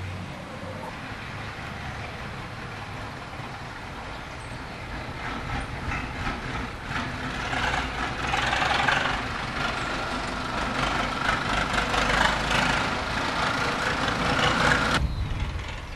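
A train going by. Its noise builds over several seconds into a loud rumble with a steady high squeal, then cuts off suddenly about a second before the end.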